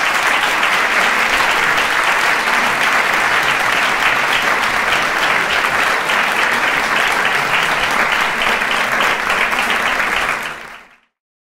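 Audience applauding steadily, fading out quickly near the end.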